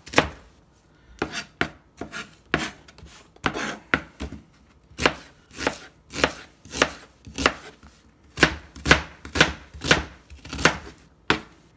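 Chef's knife dicing an onion on a thin plastic cutting mat: a run of sharp knife strikes, sparse at first, then steady at about two a second from about halfway through.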